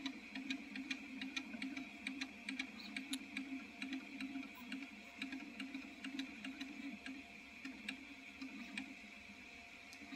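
Artillery Sidewinder X2 3D printer running a print: the stepper motors hum and warble as the print head moves, over a steady high fan whine, with many quick irregular ticks from the moving head.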